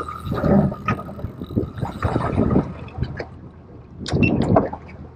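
Wind buffeting the microphone over water slapping against a small boat's hull, with a few sharp knocks, a cluster of them about four seconds in.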